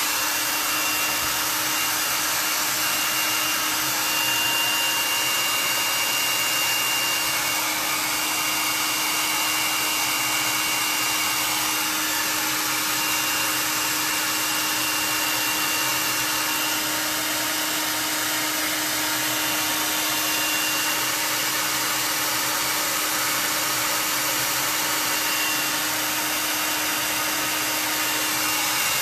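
Hand-held blow dryer running steadily: a constant rush of air with a steady low hum under it.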